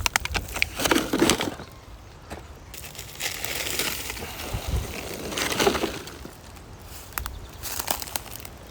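Irregular crunching and crackling of litter being handled, with a quick run of sharp clicks in the first second and a few more near the end.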